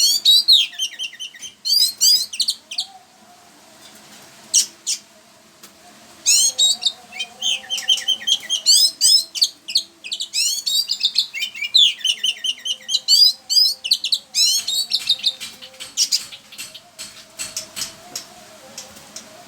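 A songbird singing in bursts of rapid, quick-sweeping high chirps, with short pauses between the bursts.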